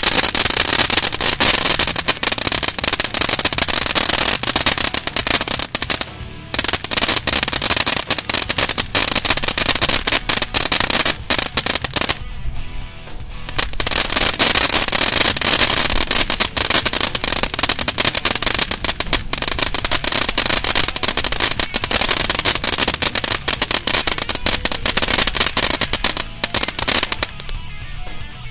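Black Cat Energizer firework fountain spraying sparks with a dense, rapid crackle over a steady hiss. It briefly drops off about six seconds in and again for a second or so around twelve seconds, then dies away near the end as the fountain burns out.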